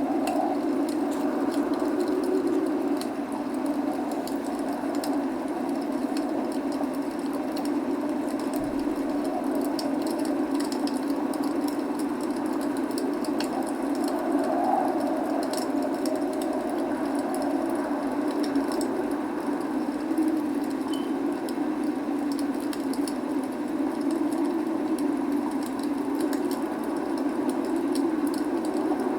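Log fire crackling and popping with many small sharp snaps over a steady, even rushing of rain.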